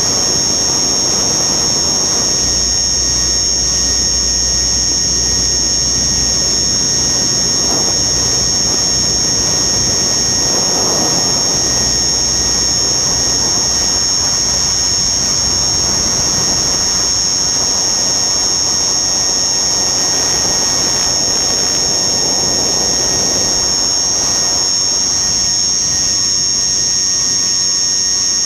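Radio-controlled aircraft's motor running steadily with a loud high-pitched whine, heard from the onboard camera along with wind rushing over the airframe. The wind rumble is heavier for the first several seconds.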